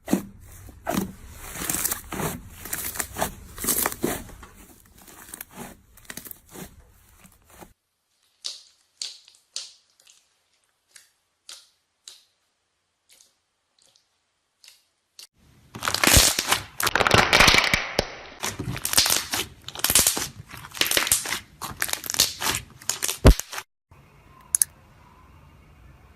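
Slime being squeezed and worked by hand, giving dense runs of crackling and popping clicks. Two busy stretches, the second louder, are separated by a spell of sparse pops, and it ends in faint room tone.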